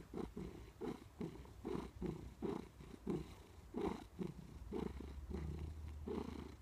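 Maine Coon cat purring close up, the purr swelling and fading with each breath in and out a little more than once a second.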